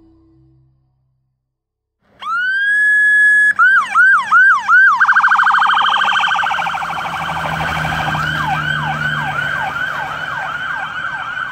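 Electronic police siren through a bumper-mounted siren speaker, driven by a Whelen CenCom Sapphire controller: after about two seconds of silence it rises to a steady held tone, breaks into quick up-down sweeps, then a very fast warble, and settles into a repeated yelp of about three sweeps a second. A low vehicle rumble runs underneath in the second half.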